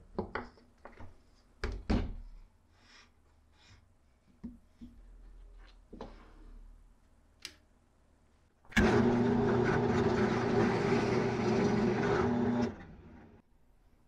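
A drill press starts up and bores a hole into a plywood disc with a wood bit, running steadily for about four seconds before cutting off and spinning down. Before it, a few wooden knocks as the disc is set on the jig.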